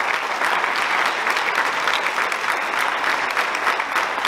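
An audience applauding steadily: many people clapping together.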